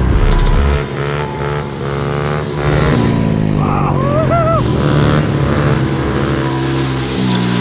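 Honda CRF110 pit bike's small four-stroke single-cylinder engine revving up and down while riding on studded tyres over lake ice.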